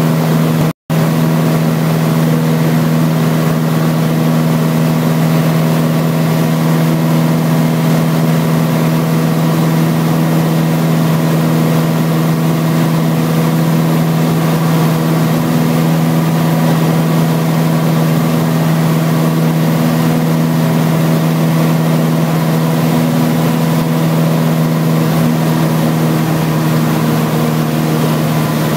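Cessna 162 Skycatcher's Continental O-200 four-cylinder engine and propeller running with a steady drone, heard from inside the cockpit. The sound cuts out for an instant less than a second in.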